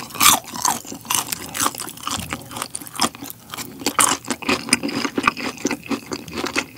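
Close-miked chewing of a small deep-fried chicken nugget: a quick, uneven run of sharp crackles and wet mouth smacks.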